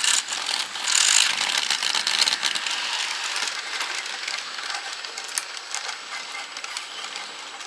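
Battery-powered NewRay RailRoadN N gauge model train running on plastic track: a continuous light rattle with many small clicks.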